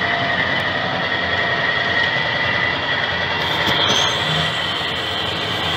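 Electric freight locomotive's driving wheels slipping on the rail under a heavy load, throwing sparks: a loud, harsh grinding rush with a steady high squeal that grows stronger about four seconds in.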